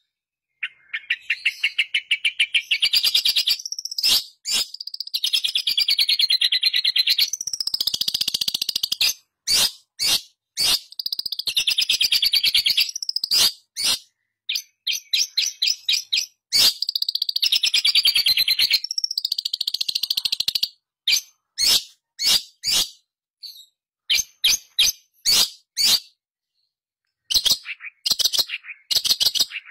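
Long-tailed shrike (pentet) singing: long runs of fast, chattering pulsed notes that rise and fall in pitch, broken by short sharp single calls, with a brief pause near the end.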